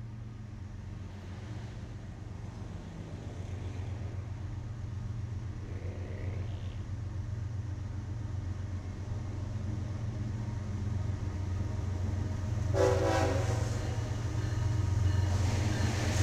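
Diesel locomotive approaching, its engine hum growing steadily louder, with one short horn blast about 13 seconds in and wheel and rail noise building near the end.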